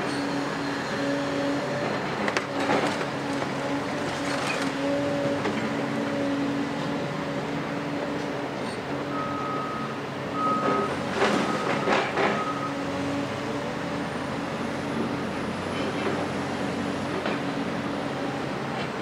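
Doosan DX255LC-5 excavator's six-cylinder DL06P diesel running steadily while its demolition grab handles rubble, with loud clattering crashes of debris about 2.5 s and 4.5 s in and again, loudest, around 11 to 12 s. A reversing alarm beeps for a few seconds in the middle.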